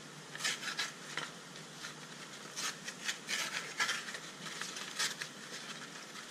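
Hands handling and peeling apart the pleated paper element of a cut-open high-pressure outboard fuel filter: irregular rustling, crinkling and light scraping, a handful of louder crackles among softer rubbing.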